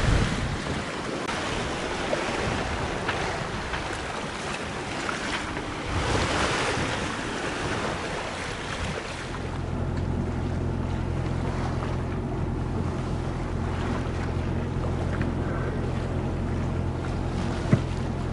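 Wind buffeting the microphone over choppy, wind-driven water. About nine seconds in, this gives way to the steady low drone of a boat engine running, and near the end there is one short knock.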